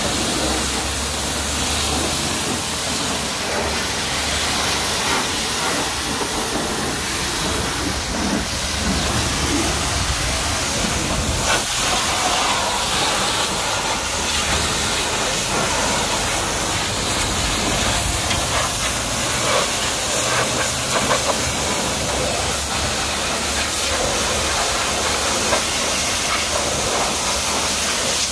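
Pressure washer's high-pressure water jet spraying a truck's front panels and then its wheel arch and chassis: a steady hiss with a low hum underneath.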